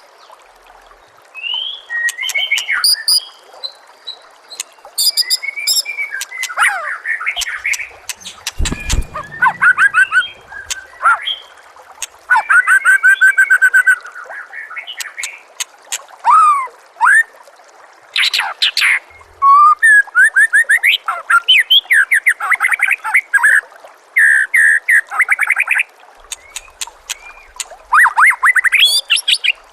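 White-rumped shama (murai batu) singing a long run of loud, varied phrases: whistles, quick up and down sweeps and fast rattling trills, broken by short pauses. A steady trickle of water runs underneath.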